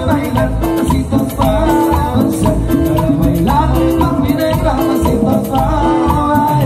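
A live Latin tropical dance band plays an upbeat number, with a steady percussion rhythm under a repeating melody.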